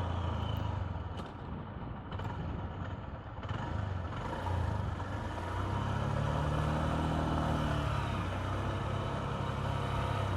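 Honda CB125F's single-cylinder four-stroke engine running at road speed, with strong gusty wind buffeting the microphone. The engine note dips about a second in and picks up again around the middle.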